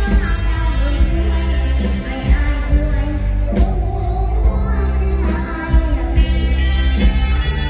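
Live Thai mor lam band music over a PA, with a steady heavy bass beat, and a young girl singing the lead into a microphone.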